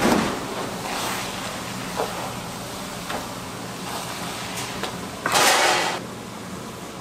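Wooden spatula stirring and scraping a pan of stir-fried seaweed stems in a large nonstick frying pan, with short strokes and one longer, louder scrape about five seconds in, over a steady low hum.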